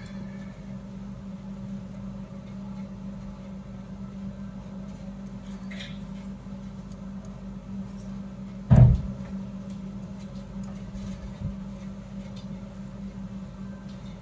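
Metal knitting needles ticking faintly as stitches are worked, over a steady low hum. A single dull thump about nine seconds in is the loudest sound.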